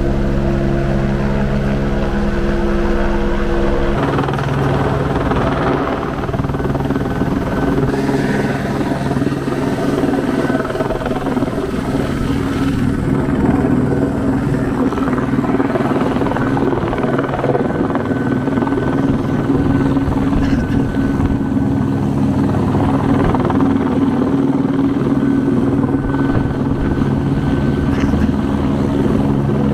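Helicopter hovering close overhead on a long-line sling, its rotor and turbine running in a steady whir; the tone shifts about four seconds in.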